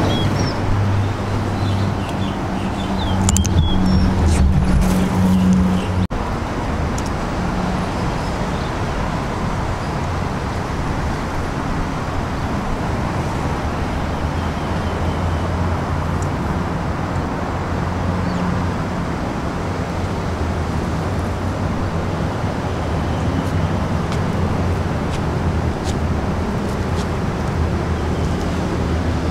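Steady low rumbling background noise with a wavering low hum, and a few short high chirps in the first few seconds.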